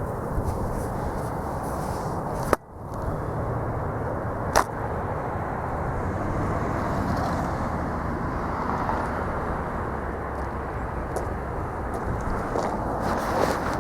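Strong wind rushing over the microphone as a steady low noise, with two sharp clicks, one about two and a half seconds in, followed by a brief drop in level, and another about two seconds later.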